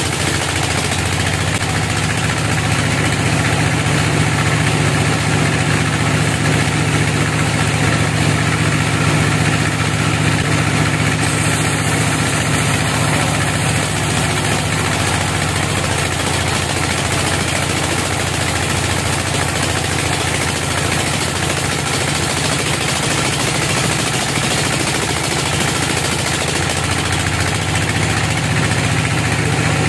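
Sawmill band saw running steadily while its blade rips lengthwise through a teak log.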